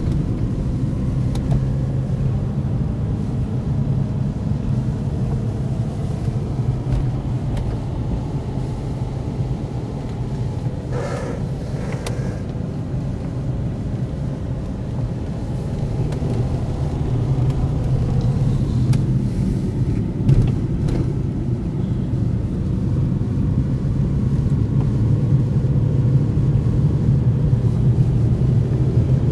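Steady road and engine noise from inside a moving car's cabin: a low hum with tyre rumble underneath, getting a little louder in the second half. A brief higher sound comes through about eleven seconds in.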